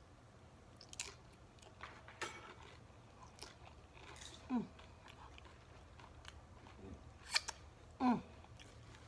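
A person chewing a mouthful of loaded tortilla-chip nachos, with scattered crisp crunches as the chip breaks. There are two short falling hums from the eater, about halfway through and near the end.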